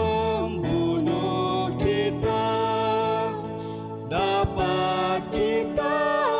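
A man and a woman singing a Malay gospel hymn as a duet over instrumental backing.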